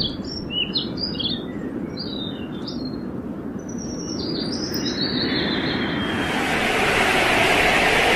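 Small birds chirping in short quick phrases over a steady background noise, then a rushing noise swells in about five seconds in and grows louder toward the end, drowning out the chirps.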